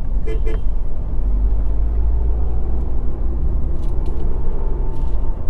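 Steady low rumble of a Tata Tiago hatchback's engine and tyres, heard from inside the cabin while it drives in slow city traffic.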